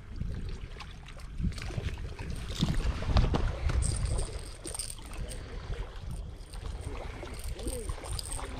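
Irregular low rumbling and scuffing from the microphone being handled and buffeted, with scattered faint knocks; it swells loudest about three seconds in.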